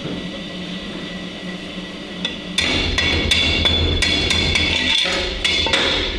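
Stick (arc) welder striking an arc at about two and a half seconds in and running for about three seconds. It gives a steady electric buzz under a dense crackle, as a short weld is laid on the seam between the pipe and its base plate to seal a small weep.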